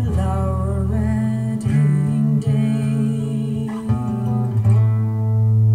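Recorded music playing through a pair of floorstanding hi-fi speakers driven by a stereo amplifier, heard in the room: a plucked-string piece with strong, held bass notes that change every second or so.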